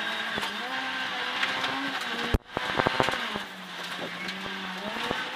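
Ford Fiesta R2 rally car's engine heard from inside the cabin, pulling hard with a gear change near the start. About two and a half seconds in there is a sharp thump followed by a short run of knocks, then the engine note drops lower as the throttle comes off.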